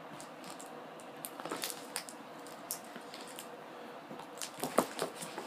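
A package being opened by hand: scattered crinkles, rustles and clicks of packaging, busiest and loudest a little before the end, over a faint steady hum.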